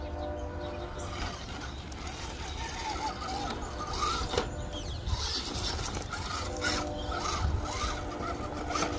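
Gen8 RC rock crawler climbing over logs and rocks: the electric drive motor and gears whine steadily, fading in the middle and coming back later, with scattered knocks of the tyres and chassis against wood and stone.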